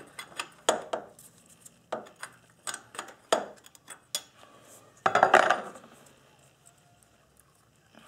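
Metal clinks of a wrench working an engine coolant temperature sensor loose: a dozen or so sharp, irregular clicks, then a longer clattering scrape about five seconds in.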